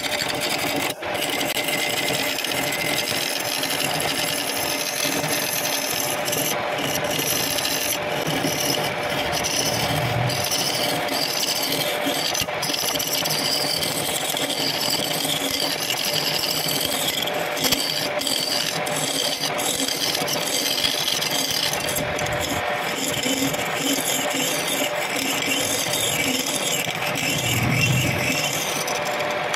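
Hand-held turning chisel cutting into a spinning guava-root blank on a belt-driven wood lathe, hollowing out its end: a continuous scraping, rasping noise over the steady hum of the lathe's electric motor.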